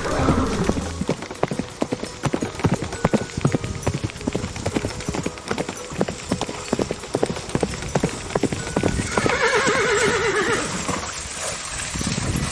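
Horse hooves clip-clopping in a quick, continuous run of steps. About nine seconds in, a horse whinnies with one long, quavering call.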